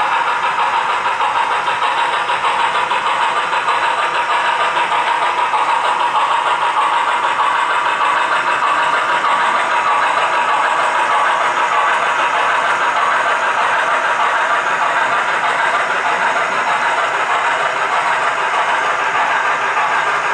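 Model trains running on a layout: a steady, even mechanical whir of motors and wheels on track, with no clear beat.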